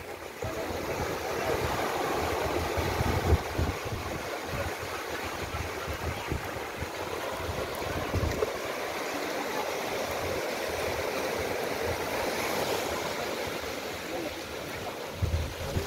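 Small waves washing up on a sandy shore, a steady rushing hiss, with wind rumbling on the microphone.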